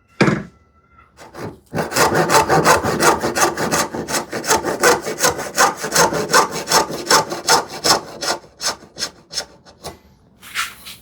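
Hand saw cutting a short wooden filler piece along a marked curve, in quick back-and-forth strokes that start about two seconds in and tail off near the end. A single knock comes just before the sawing begins.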